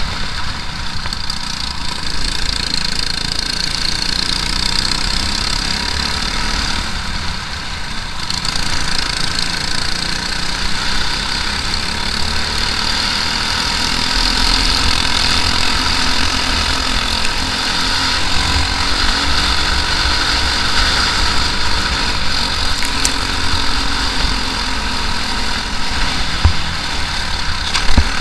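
Briggs & Stratton LO206 four-stroke kart engine running hard at racing pace, heard from on board the kart. There is a brief drop in level about eight seconds in and a sharp knock just before the end.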